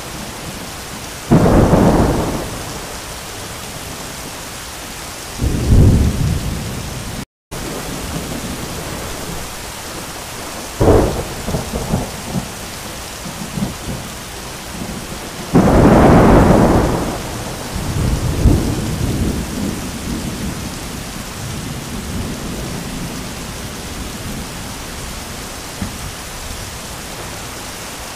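Heavy rain pouring steadily through a thunderstorm, with several claps of thunder: one about a second in, another at about five seconds, a sharp crack near eleven seconds, and the longest, loudest peal about fifteen seconds in, which trails off into rumbling. The sound cuts out for a split second at about seven seconds.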